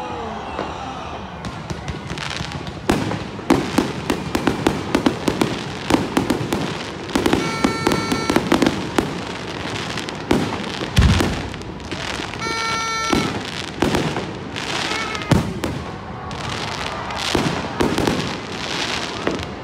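Aerial fireworks display: a rapid, uneven run of sharp bangs and crackling bursts, with a few deeper booms about eleven seconds in. Twice, around eight and thirteen seconds in, a steady pitched tone sounds for about a second over the bangs.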